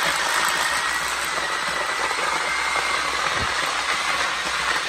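A high-pressure gas burner under a hard-boiling stockpot of horse bones running with a loud, steady rushing hiss and a faint high whine.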